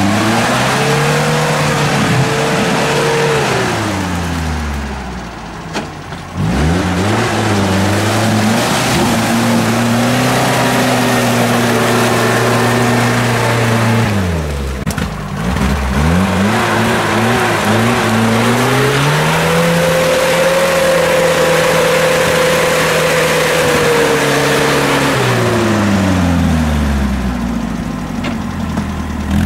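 An off-road 4x4's engine is revved hard and held at high revs for several seconds at a time, dropping back and climbing again three times, while its wheels spin through deep mud.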